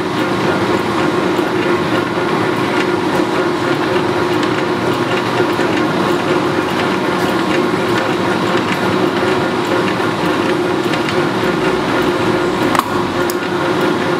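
Lodge & Shipley 2516 oil-country hollow-spindle lathe running under power, its headstock gearing and spindle turning with a loud, steady drone of several hums and a light clatter. A single sharp knock comes near the end.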